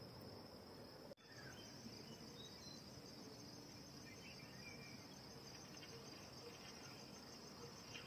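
Faint, steady high-pitched chirring of crickets, with a few soft short chirps over it. The sound drops out for an instant about a second in.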